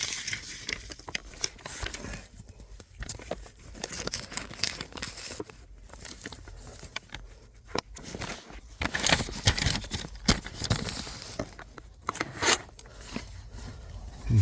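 Rustling and scattered clicks and knocks from hands handling parts and tools at a car's steering column, loudest a little past the middle.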